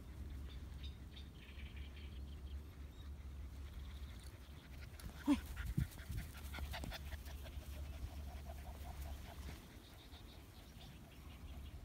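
Two-month-old Akita puppies vocalizing in play: a short, sharp yip about five seconds in, the loudest sound, with a second just after, then a faint drawn-out whine.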